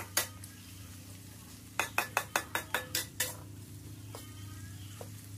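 A metal utensil stirring and knocking against a steel wok during stir-frying. There is a quick run of about eight clinks around two to three seconds in, and single clinks before and after. Food sizzles underneath.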